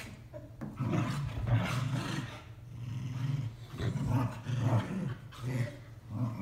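Two dogs play-growling as they wrestle, in a series of low, rumbling bursts.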